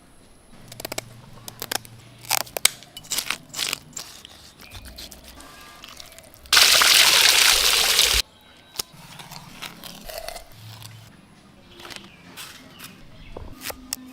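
Fish feeding on chunks of chicken meat in water: scattered splashes and sharp crackling clicks, with one loud rush of splashing about halfway through that lasts under two seconds.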